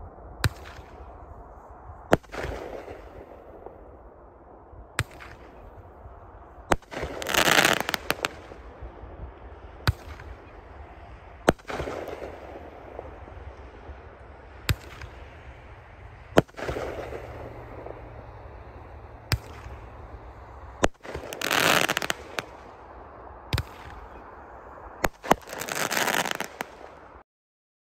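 A 500-gram Rage Mad Ox repeater cake firing: sharp bangs from its shots and their bursts, spaced a second or a few seconds apart. Several of the breaks are followed by crackle stars crackling for about a second. The sound cuts off just before the end.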